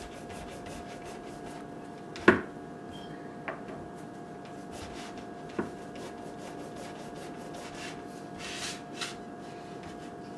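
Hands and a knife working a jackfruit open: quiet rubbing and scraping, with one sharp knock about two seconds in and a few smaller ticks, over a steady faint hum.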